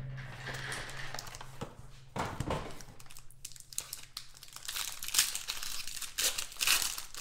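A wrapped pack of trading cards being torn open and its wrapper crinkled by hand: irregular crinkling and rustling, busiest in the second half.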